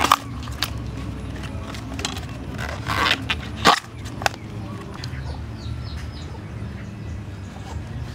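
Banana blossom bracts being peeled off by hand: a few crisp snapping and tearing sounds, the loudest about three and a half seconds in.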